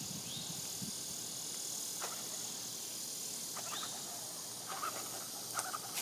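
Steady outdoor background hiss with a few faint, brief chirps, two of them rising in pitch.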